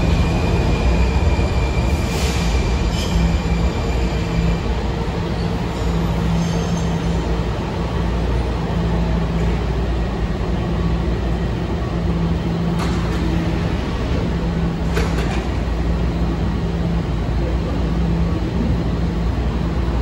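Washington Metro Red Line subway train running through the station with a steady heavy rumble; a high wheel squeal fades out in the first few seconds, a low hum comes and goes, and a few sharp clicks sound along the way.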